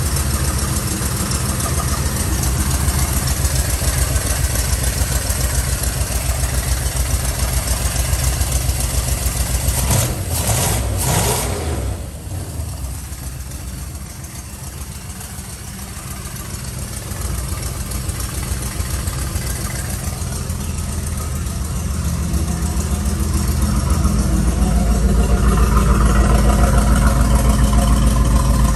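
Cammed 383 small-block Chevy V8 running on Holley Sniper throttle-body fuel injection, idling steadily. It grows louder near the end as it is heard at the rectangular exhaust tips, with a brief burst of noise about ten seconds in.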